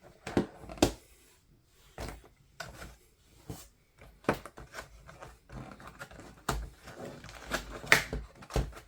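Small plastic parts and packaging being handled: irregular clicks, taps and rustles, the loudest knock about eight seconds in.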